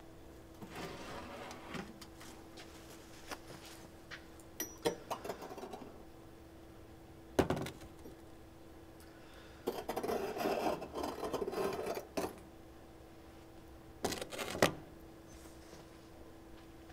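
Metal tongs clinking and scraping on a ceramic board as a red-hot iron ball and a chunk of hot brick are set down, with a sharp knock a little under halfway, a stretch of scraping about two-thirds through, and a couple more knocks near the end. A steady low hum runs underneath.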